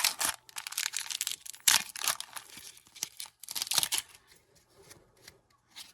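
A foil Pokémon card booster pack wrapper being torn open and crinkled, in several sharp rips and rustles that die down near the end.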